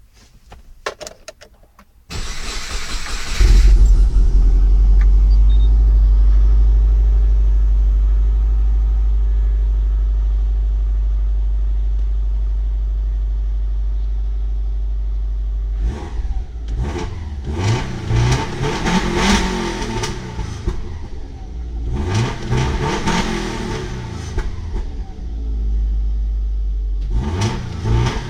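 Subaru Forester's flat-four boxer engine with a Blitz Nur Spec aftermarket exhaust, heard from inside the cabin. After a few clicks the starter cranks for about a second and the engine catches. It idles high, settling slowly, and is then revved several times about halfway through and again near the end.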